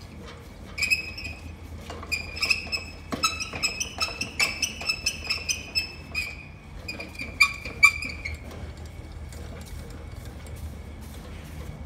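Depth adjuster crank on a Husqvarna PG 280 SF concrete grinder being wound by hand, giving a rapid run of short, high squeaks that stop about eight seconds in.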